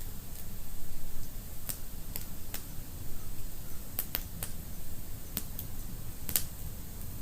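Fire burning in a fireplace, crackling with irregular sharp pops, a few close together about four seconds in, over a low steady rumble of the flames.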